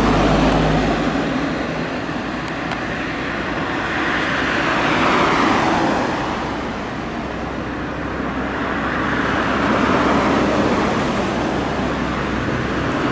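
Road traffic: cars passing one after another, each swelling up and fading away, about three passes.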